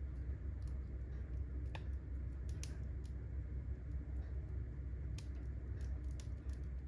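Firewood burning in a fireplace, crackling with sharp irregular pops and snaps over a steady low rumble.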